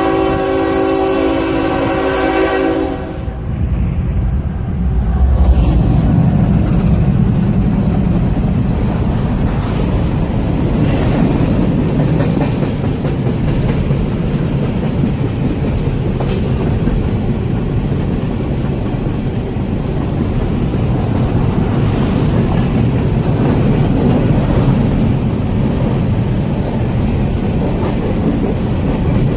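Train horn sounding one long held chord that cuts off about three seconds in, then the train rolling past close by with a loud, steady rumble of wheels on the rails.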